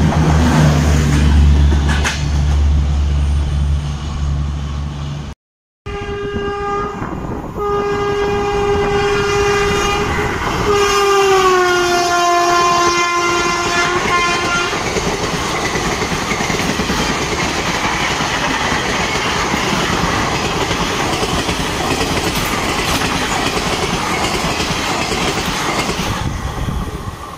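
Express train coaches rushing past with a low steady hum. After a cut, a locomotive sounds a long multi-tone horn, briefly broken, whose pitch falls as it passes. Blue ICF passenger coaches then clatter over the rail joints at speed.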